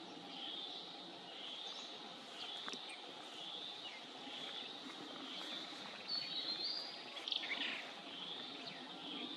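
Other birds chirping in the trees: one repeats a short high note about once a second, and a few louder, sharper calls and a falling call come about two-thirds of the way in. The koel itself is silent.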